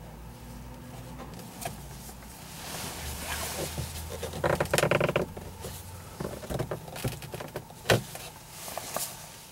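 Plastic overhead room-lamp housing in a car headliner being worked loose by gloved hands: rustling, scraping and small clicks, with a short squeak about halfway through and a sharp snap-like click near the end.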